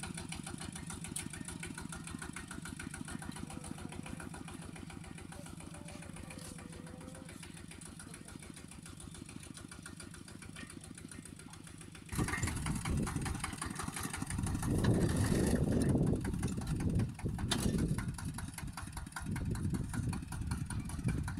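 Single-cylinder diesel engine of a Kubota two-wheel walking tractor running with a quick, even beat. About twelve seconds in it becomes much louder and rougher, surging unevenly, as the tractor works the soil.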